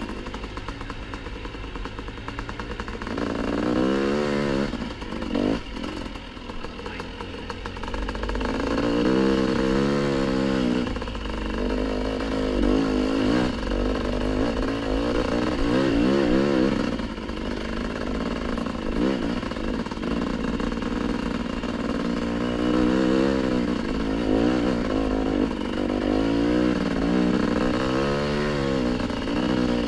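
Dirt bike engine ridden on the trail, revving up and falling back again and again as the throttle is opened and closed. It eases off to a lower, quieter running for a few seconds around five to seven seconds in.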